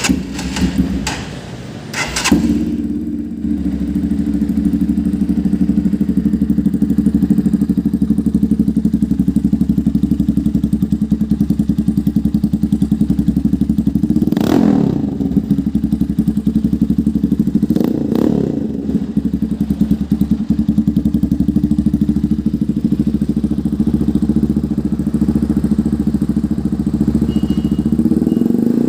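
Motorcycle engine breathing through an SC-Project aftermarket exhaust: a few sharp clicks, then the engine settles into a steady idle about two seconds in. Short throttle blips rise and fall twice around the middle and once more near the end.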